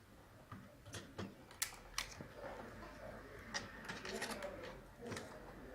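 Faint, irregular clicks and taps of small plastic and metal parts as an HP laptop's mainboard is worked loose and lifted out of its case, with a busier run of light rattling about two-thirds of the way through.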